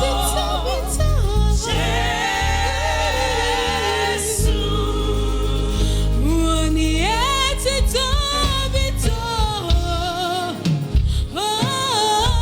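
Live gospel praise-and-worship song: a singing voice with vibrato and rising glides over instrumental backing with sustained bass notes.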